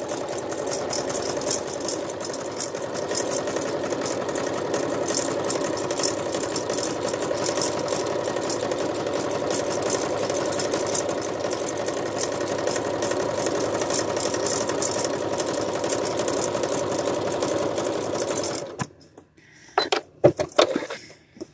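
Domestic sewing machine running steadily as it stitches fabric, then stopping about three seconds before the end. A few light clicks and handling knocks follow.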